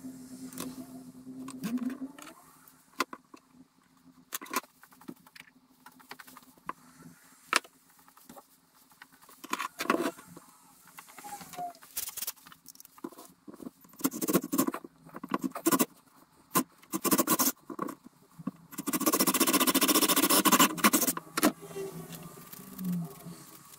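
Workbench handling sounds: wooden strips, a pencil and tools picked up and set down, giving scattered clicks and knocks. A louder burst of noise lasts about two seconds, a few seconds before the end.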